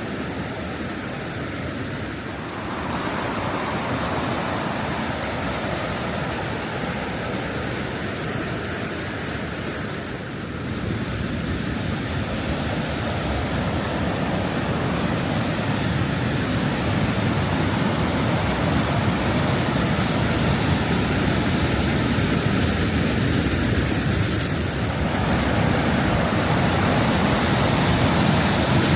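Steady rushing of a river's small waterfalls and rapids, growing gradually louder.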